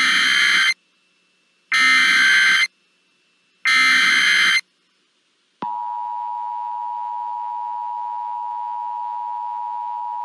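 Emergency Alert System header: three bursts of SAME digital data tones, each about a second long with a second's gap between them. About five and a half seconds in, the steady two-tone EAS attention signal starts and holds.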